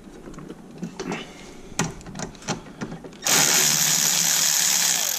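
A few light clicks as a tool is set on a screw, then about three seconds in a power tool runs steadily for about two seconds, backing out one of the screws that hold the degas (coolant expansion) bottle.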